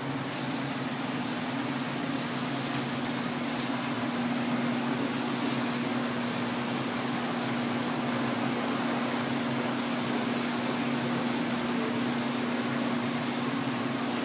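Steady fan hum with a low steady tone underneath, getting a little louder about four seconds in, with a few faint ticks of handling.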